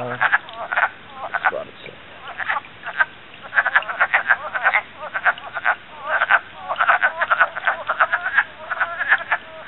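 Breeding chorus of wood frogs: many short calls overlapping, growing denser about a third of the way in.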